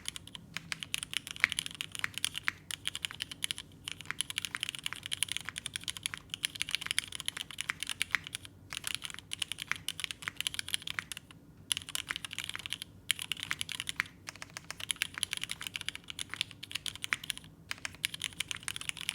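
Continuous fast typing on a mechanical keyboard with lubed vintage Cherry MX Black linear switches, a polycarbonate case, aluminium plate and ABS keycaps, with short pauses between bursts.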